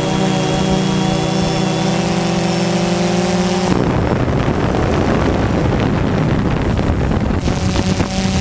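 Multirotor drone's motors and propellers buzzing in a steady hum of several even tones, heard from its onboard camera. About four seconds in the hum gives way to a rougher rushing noise for a few seconds, and the steady hum returns near the end.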